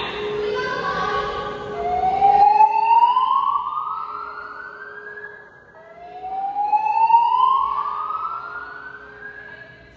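Fire alarm voice evacuation system sounding its slow whoop tone: a rising sweep about four seconds long that starts over again from low pitch, heard twice in full, after a noisier stretch in the first two seconds. A faint steady low tone runs underneath.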